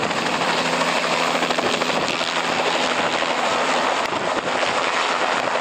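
Bell 206-type turbine helicopter flying low and close overhead, its rotor chop and engine running loud and steady.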